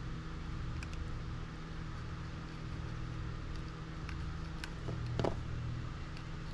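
Steady low hum of the room, with a few faint clicks from a plastic RC buggy suspension arm being handled and a sharper click about five seconds in.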